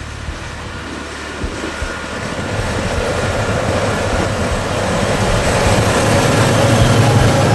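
Fendt 936 Vario tractor pulling a loaded triple-axle Joskin Drakkar silage trailer on a paved road: a steady engine and tyre rumble with some knocks, growing louder over the second half as the rig drives up close.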